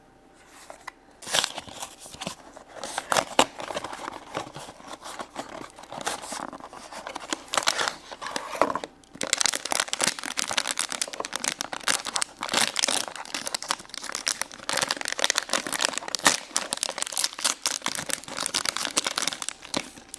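Hands tearing open and crumpling the wrapping of a toy surprise box: a dense, continuous run of crinkles and rips, with a brief pause about nine seconds in.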